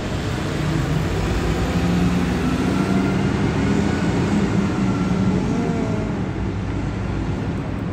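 Double-decker bus engines running as buses move through a bus station: a steady low engine drone over traffic noise, with a short faint squeal about five and a half seconds in.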